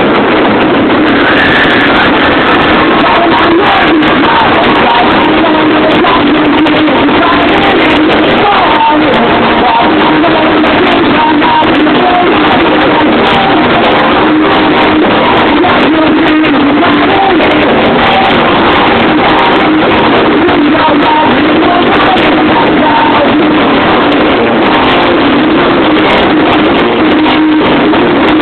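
Live punk rock band playing: distorted electric guitars, bass and drums at full volume, captured by a phone microphone close to the stage. The level is loud and constant throughout.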